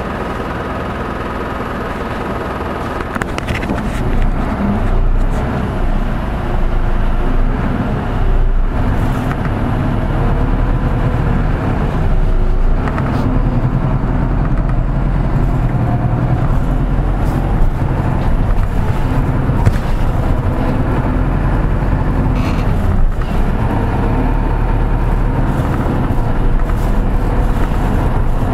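Hino Poncho bus heard from inside the cabin: its diesel engine running with road and body noise. About three seconds in it grows louder and the engine note rises and shifts as the bus gets under way, with a few rattles and knocks from the body.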